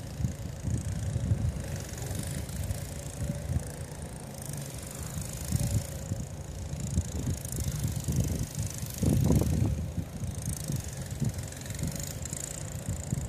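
Wind buffeting the microphone in uneven low gusts, strongest about nine seconds in, over a faint steady hum.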